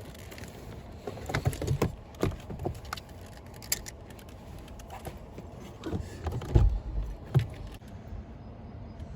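Handling noises inside a car: a scattered series of short clicks and knocks, with a couple of heavier low thumps past the middle.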